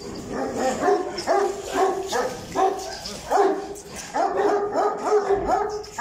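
Bully kutta (Pakistani mastiff) barking over and over, about two to three barks a second, with a steady whine running under the barks.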